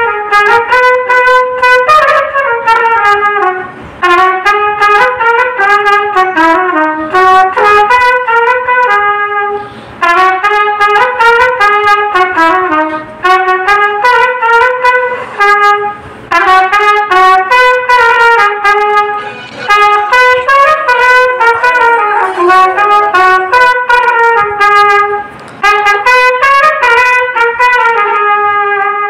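Solo trumpet playing the melody of a Telugu film song, unaccompanied, in phrases broken by short breath pauses every few seconds.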